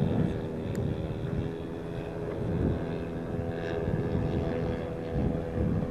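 Engine and propeller of a radio-controlled scale Cessna 182 model droning steadily in flight, its pitch dipping slightly about a second in. Wind rumbles on the microphone.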